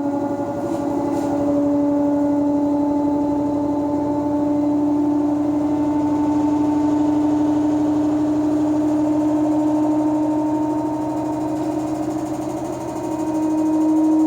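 Electrolux LSE09 washer-dryer in its spin cycle, giving out a loud, steady whining hum. The pitch rises slightly and it gets louder near the end. This is the excessive spin noise the owner is complaining about.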